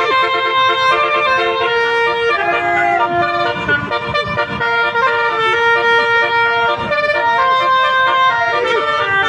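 Bus telolet horn playing a tune: several horns sound held, buzzy notes that step from pitch to pitch, often more than one at once, over a low rumble.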